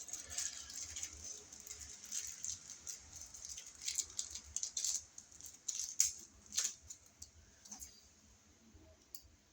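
An electrical box extension being fitted onto an outlet box over the wires, giving a string of rattling, scraping and clicking handling noises that thin out near the end.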